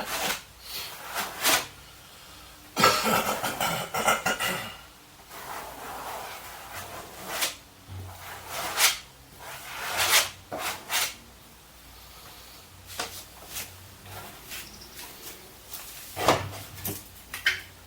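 Irregular knocks and clicks of things being handled, with a stretch of rough scraping about three to five seconds in.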